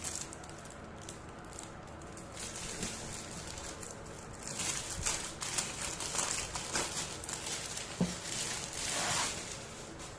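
Packaging crinkling and rustling as it is handled, much busier from about four and a half seconds in, with one sharp knock about eight seconds in.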